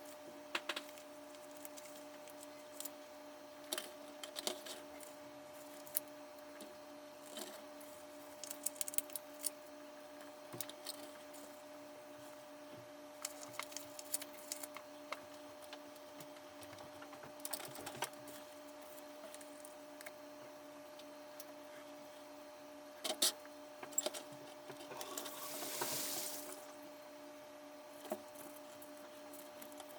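Scattered light clicks and taps of hands handling small plastic parts and a sticker sheet, over a steady electrical hum. A brief rustling swish near the end.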